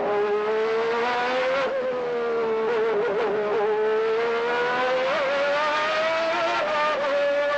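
Onboard sound of a 1991 McLaren MP4/6 Formula 1 car's Honda V12 engine running at speed. Its pitch sags slightly, then climbs slowly from about halfway and holds, with brief wobbles about two to three seconds in and again around five seconds.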